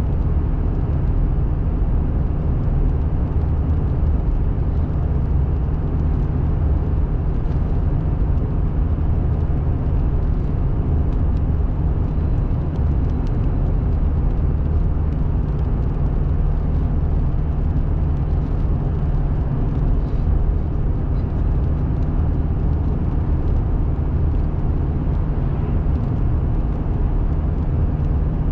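Steady low rumble of road and engine noise inside a moving car, with faint scattered ticks.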